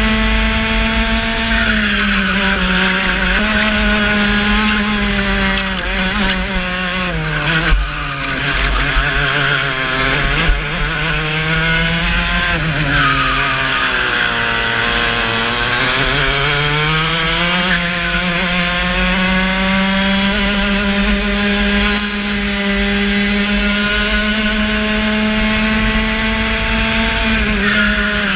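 Racing kart engine heard from on board at high revs. Its pitch falls for several seconds as it slows through a tight corner, then climbs back up and holds high under full throttle.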